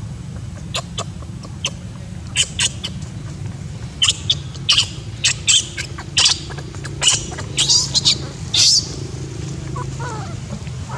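A run of short, sharp, high-pitched chirping calls, a dozen or so, bunched between about two and nine seconds in, over a steady low hum.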